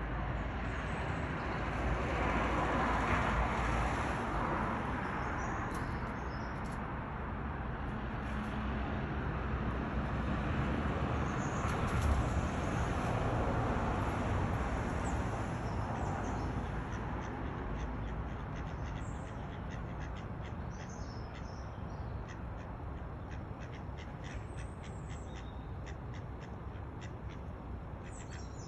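Ducks calling: a hen duck and her ducklings, with short high peeps scattered through and more frequent in the second half, over a steady background rush.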